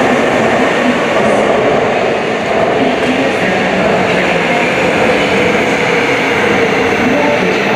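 Seoul Subway Line 2 electric train running into the station at speed past the platform screen doors: a loud, steady rush of wheels on rail with the whine of its traction motors.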